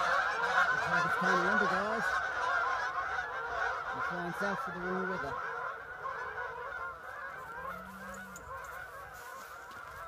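A large flock of geese flying over in a skein, many birds honking at once in a dense, overlapping chorus that fades steadily as the flock moves away.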